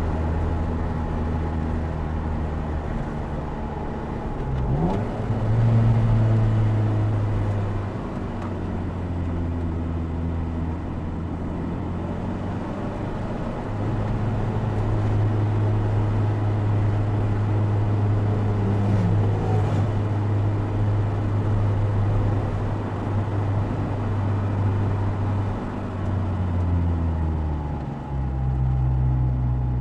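Opel Speedster Turbo's mid-mounted turbocharged four-cylinder engine running on a twisting mountain road, heard close from behind the open cockpit's seats. The engine speed rises and falls several times, with a quick climb about five seconds in.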